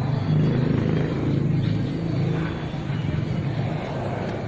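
Engine of a nearby motor vehicle running at a steady low pitch. It is loudest in the first second or two and eases off toward the end.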